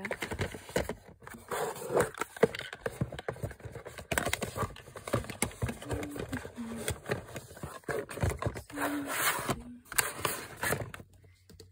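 Cardboard cosmetic boxes being handled and slid into a drawer: repeated scraping, tapping and rustling of cardboard against cardboard and the drawer.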